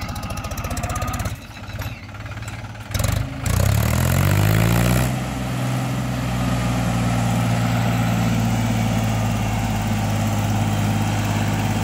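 Mahindra 265 DI tractor's three-cylinder diesel engine running. About three and a half seconds in it revs up, rising in pitch, then settles into a steady run.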